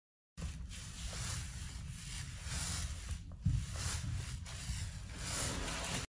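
Paint roller rolling paint onto a textured wall: a noisy swish that swells and fades with each stroke, about once every second or so, with one thump about three and a half seconds in.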